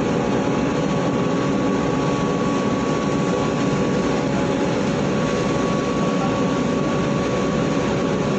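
Steady drone of a ship's engines and machinery heard on the open deck, with a faint steady whine over the noise.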